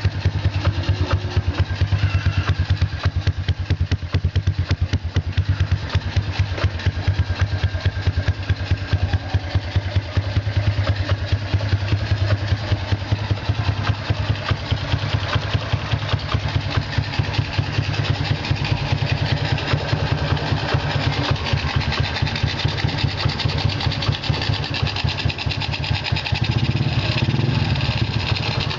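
Honda Wave 125's single-cylinder four-stroke engine, bored to 57 mm with stage 1 cams, running at a steady idle through a KITTI racing exhaust. The revs rise slightly near the end.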